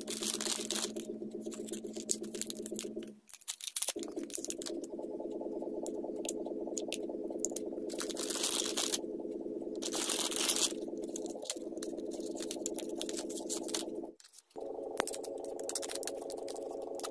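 Plastic packaging of a painting kit crinkling and rustling as it is handled, in short bursts with small clicks. Under it runs a steady background drone of held tones that stops and changes pitch twice.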